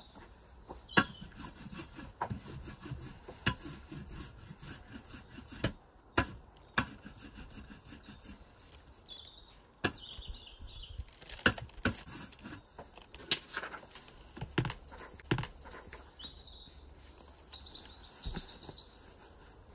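Scattered knocks and clicks of a rubber ink roller (brayer) and a glass printing plate being handled and rolled, with birds chirping now and then in the background.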